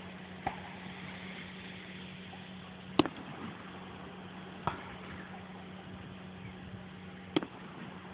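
Fireworks going off: four sharp bangs, the loudest about three seconds in, over a steady low hum.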